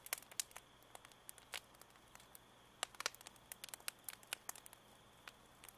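Faint, sparse crackling: irregular small clicks and pops, a few every second, over a low steady hum.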